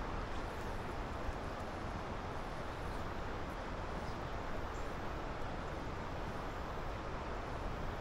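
Steady rush of flowing river water, an even hiss that holds at the same level throughout.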